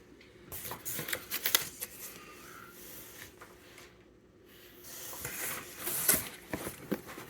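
Rustling, sliding and light clicks of game cards, boxes and packaging being handled, in two bursts with a quieter stretch between.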